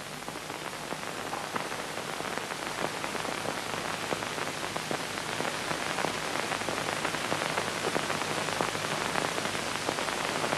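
Steady hiss and crackle of an old film soundtrack, with many small clicks and a faint low hum.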